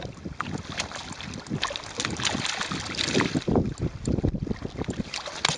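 A mirror carp splashing and flapping in shallow water at the edge, in irregular bursts, with wind buffeting the microphone.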